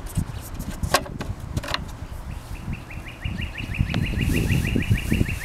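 Two sharp plastic clicks as the mower's yellow oil-fill cap and dipstick are handled, over a low rumble. From about two seconds in, a bird's fast, even trill repeats about eight times a second.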